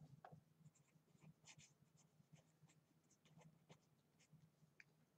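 Faint scratching of a pen writing on paper, in many short strokes.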